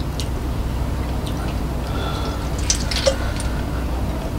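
Wet mouth sounds of chewing: a few faint lip smacks and clicks, most of them in the second half, over a steady low hum.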